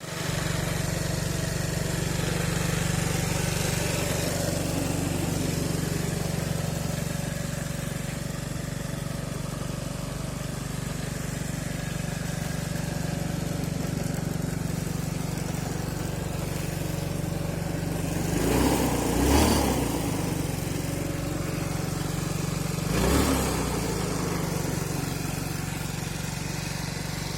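GX Moto Matrix motorcycle engine idling steadily, being run in after replacement of the starter's bendix drive and ratchet. The throttle is blipped briefly about two-thirds of the way through, and once more a few seconds later.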